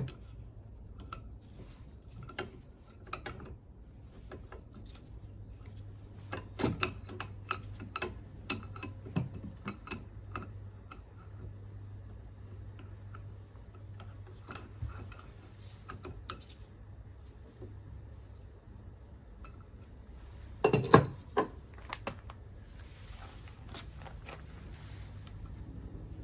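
Hand tools and small metal parts of a Yamaha Cygnus scooter engine clinking and knocking during disassembly, with irregular scattered clicks and a louder knock about three-quarters of the way through. A steady low hum runs underneath.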